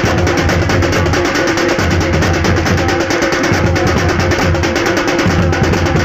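A group of large daf frame drums beaten together in a fast, steady rhythm, with a steady drone-like tone beneath the strokes.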